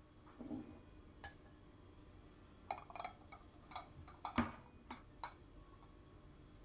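Ceramic bowls and a wooden spoon being handled: a soft stir near the start, then a quick run of light clinks and taps about three to five seconds in.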